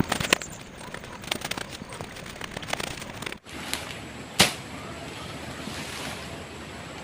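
Scattered sharp knocks and clicks, a quick cluster at the start and one loud knock about four and a half seconds in, with a brief break in the sound a little before it.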